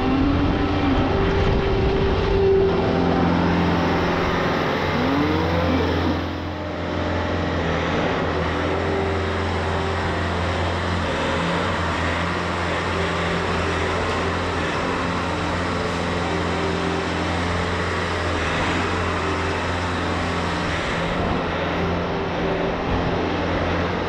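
Bobcat skid steer's diesel engine running steadily as it carries and handles a round bale of corn stalks for bedding, with two short rising whines in the first several seconds.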